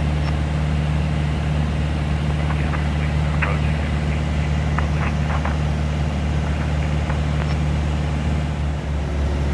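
Steady low drone of a small aircraft's engine and propeller heard inside the cockpit, with a few faint brief clicks over it.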